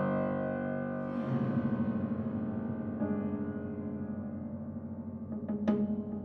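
Solo piano playing: a held chord that fades, then fast repeated low notes, and sharp accented chords struck near the end.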